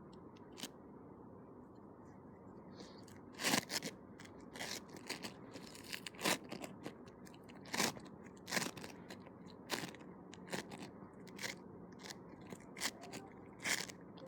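Sticky homemade slime being squished and pulled by hand, giving irregular sharp pops and clicks, about one every half second to second, starting a few seconds in.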